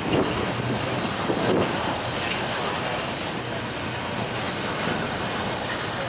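Intermodal freight train's cars rolling past, with a steady rush of wheels on rail.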